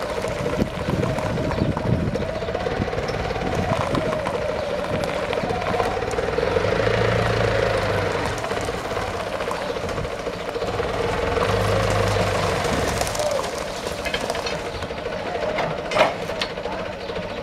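Engine of an old Desta forklift running as it drives and manoeuvres, twice working harder and growing louder for a second or two. A sharp click comes near the end.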